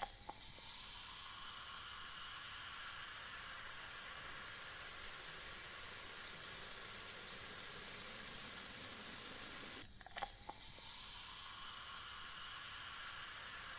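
Cola poured from a plastic bottle into plastic cups, fizzing with a faint, steady hiss. About ten seconds in the hiss breaks off briefly with a couple of light clicks, then starts again as the next cup is filled.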